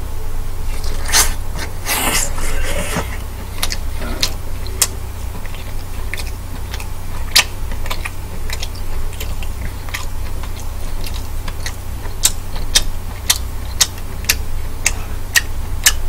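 Close-miked eating of a large black tiger prawn: a wet bite and slurp about a second in, then chewing with many sharp wet mouth clicks and smacks, over a steady low hum.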